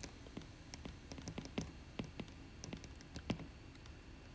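Stylus tip tapping on a tablet's glass screen during handwriting: an irregular run of faint, quick clicks.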